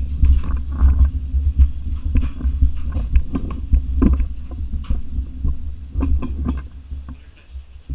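Push-along toddler tricycle rolling across a tile floor: a steady low rumble from the wheels with scattered clicks and rattles from the frame, heard close up from a camera mounted on the handlebar. The rumble dies down near the end.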